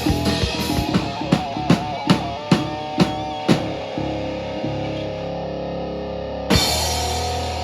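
Live rock band with drum kit, bass and electric guitar playing: a run of about six hard accented drum hits, then a held chord, then a crash hit about six and a half seconds in with the chord ringing on, near the close of the song.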